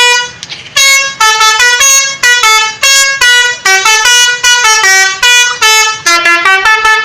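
Indonesian bus 'telolet' horn, a multi-tone musical air horn, playing a quick melody of short notes that step up and down in pitch with brief gaps between them. It pauses briefly near the start, then plays on without a break.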